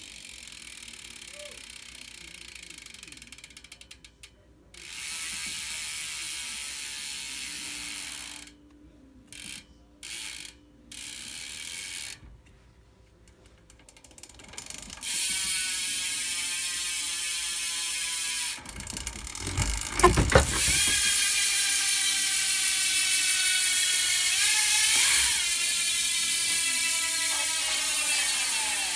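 Eastern Buzzip BMX wheel's cassette hub freewheeling: the pawls ratchet in a fast clicking buzz as the wheel spins. It comes in several short spins, fainter at first, then pretty loud from about halfway, with a thump as the wheel is spun again and the buzz slowly dropping in pitch near the end as the wheel slows.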